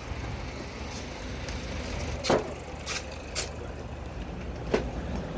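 Street ambience: a steady low rumble of road traffic, with a handful of sharp clacks scattered through, the loudest about halfway.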